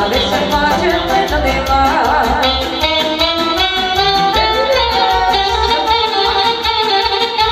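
Live band music through a PA: saxophone and electronic keyboard over a steady beat, with a woman singing into a microphone.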